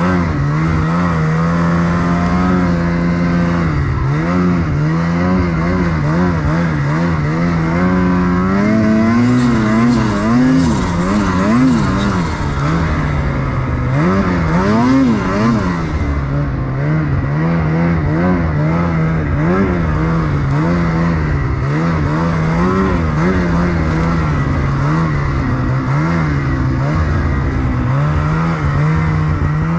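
Snowmobile engine running under throttle, its pitch rising and falling as the rider works the throttle, with harder revs about a third of the way in and again about halfway through.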